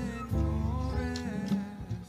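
Background music: a gliding melody over low bass notes.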